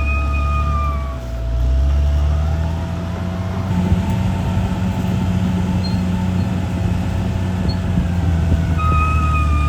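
CAT D6R bulldozer's diesel engine running under load: it dips briefly about a second in, then revs up and holds at higher revs. A high steady squealing tone joins near the end.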